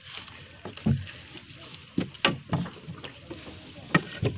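About half a dozen sharp knocks and thumps against a wooden outrigger boat as a large eel is hauled aboard by hand, over a steady hiss of wind and water.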